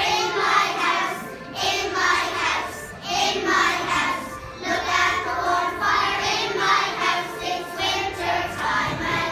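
A group of young children singing a song together, in phrases of about a second each.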